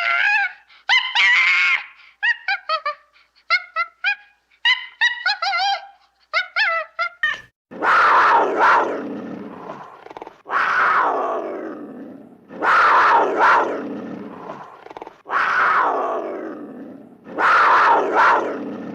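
Animal calls: a run of quick, short, high chirping calls, then from about eight seconds in five long, loud calls, each falling in pitch, repeating about every two and a half seconds.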